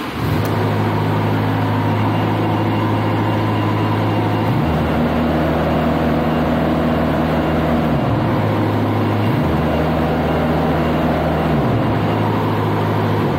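Niftylift HR21D boom lift's diesel engine running loudly, its speed switching between two steady settings about four times as the throttle solenoid pulls in and drops out. The machine is being tested for its fault of the engine cutting out when sent to high revs.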